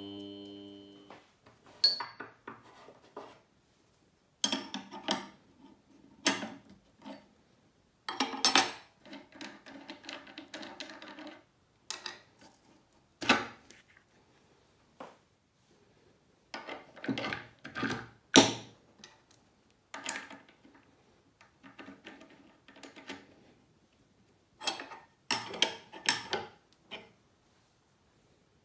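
Small metal watch parts and tools clinking and tapping on a hard bench surface: irregular sharp clicks and clinks with short quiet gaps between them. A steady machine hum cuts off about a second in.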